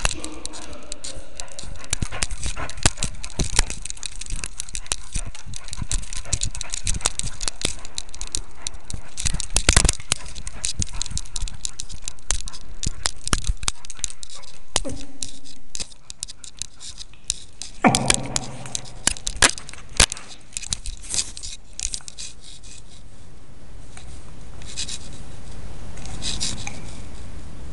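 Collar-mounted camera rubbing and knocking against a dog's collar and fur as the dog moves, a dense run of scrapes and clicks. It gets quieter about halfway, then gives a few sharper knocks.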